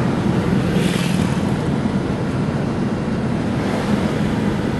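Steady low rumble of road and wind noise from a car driving along, with a brief hiss about a second in.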